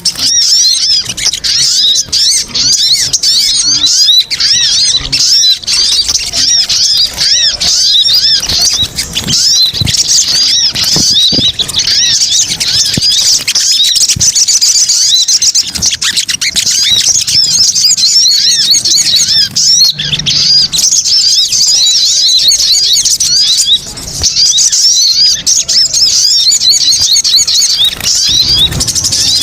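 Sogon (little spiderhunter) calls used as a bird lure: many rapid, high chirps overlapping without a break, a noisy excited chatter.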